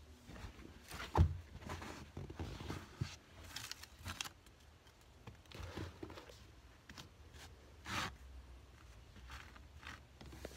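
Rustling and scraping of cloth rubbing against a phone's microphone, with scattered clicks and a sharp knock about a second in.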